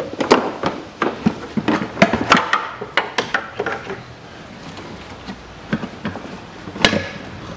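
Plastic windscreen washer reservoir being worked loose and shifted by hand against the car's front-end metalwork: a run of plastic clicks, knocks and scrapes, with one sharper knock near the end.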